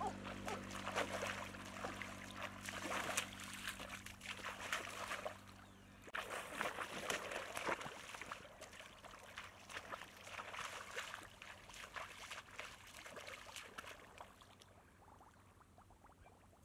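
Shallow muddy water splashing and sloshing in irregular bursts as a person wades through a flooded field and works in the water with a bamboo fish basket and bare hands. The splashing eases off near the end, and a steady low hum sits under the first few seconds.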